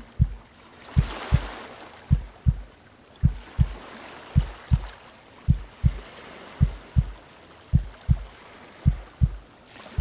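Slow heartbeat, deep lub-dub thump pairs a little less than once a second, over calm ocean waves whose soft wash swells and fades.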